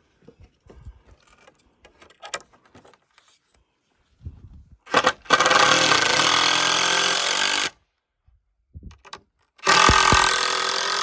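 Power driver driving screws into wood in two runs, about two and a half seconds and then two seconds long, after a few light clicks of handling the screws and boards.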